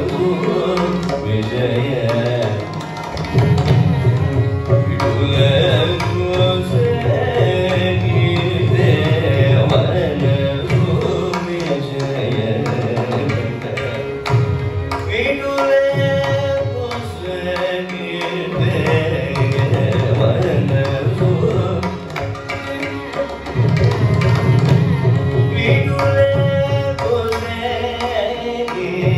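Carnatic classical singing by a male vocalist in raga Nattakurinji, with mridangam drumming throughout.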